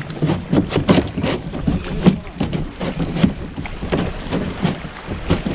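A fishing kayak moving on the sea: water splashing and slapping against the hull, with frequent irregular knocks, several a second.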